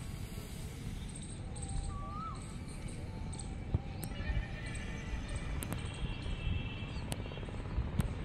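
Open-air ambience: a steady low rumble of wind on the microphone, with a few faint bird chirps and, from about halfway, distant high-pitched horn-like tones.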